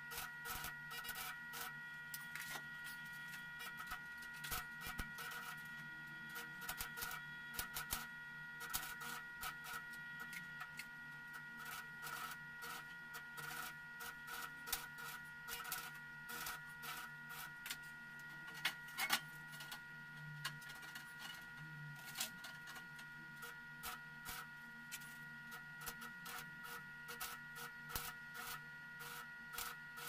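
Stick (arc) welding on thin sheet steel: the electrode arc crackling and popping irregularly, over a steady high electrical whine and a low hum.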